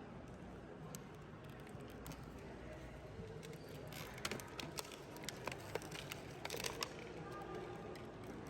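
Small plastic toy pieces and packaging being handled: light rustling and a cluster of sharp clicks from about four to seven seconds in, over a low steady hum.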